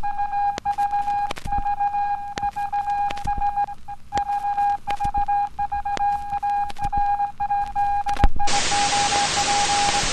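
A steady, single-pitched television test-pattern tone with scattered crackling clicks; about eight seconds in, loud TV static hiss starts abruptly under the tone.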